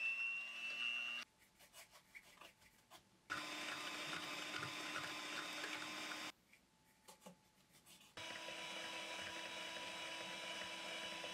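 Dretec electric hand mixer whipping cream in a plastic bowl, its motor running with a steady whine in three stretches separated by two short pauses with a few light clicks. The cream is being beaten until it firms up.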